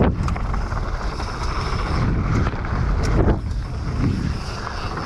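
Wind buffeting the microphone and tyres rumbling over a dirt trail as a Specialized Demo downhill mountain bike descends, with a few sharp knocks from the bike over bumps, one at the start and one about three seconds in.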